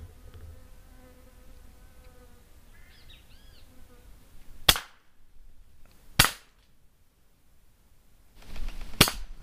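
Three sharp shots from a PCP air rifle, an FX Royale 400 firing slugs. The first comes about halfway through and the last near the end. Before them a faint, steady whistle-like call can be heard.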